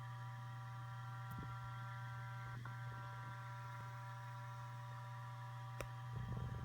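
Seagate ST8000DM002 8 TB hard drive idling with a steady low buzz and a cluster of higher steady whining tones, which break off for an instant about two and a half seconds in. A sharp click comes near the six-second mark, followed by a few low bumps near the end.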